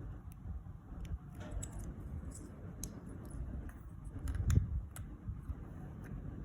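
Plastic Lego bricks being handled: scattered small clicks and taps, with a louder knock about four and a half seconds in, over a low background rumble.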